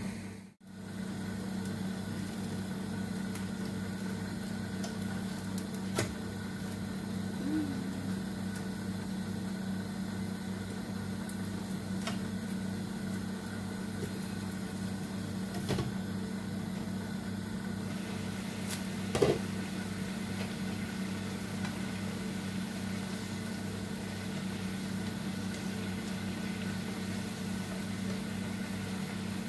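Steady low mechanical hum of a running kitchen appliance, with a few scattered clinks of pans and lids on a gas stove, the loudest about 19 seconds in.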